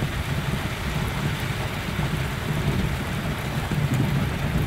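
Heavy rain falling on the windshield and roof of a Toyota 4x4, heard from inside the cabin, over the steady low rumble of the truck driving a dirt road.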